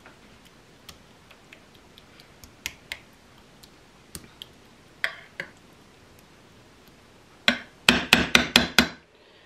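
A metal spoon scraping and clicking lightly against a glass baking dish while a thick casserole mixture is spread out. Near the end, a quick run of about seven sharp taps of the spoon on the glass.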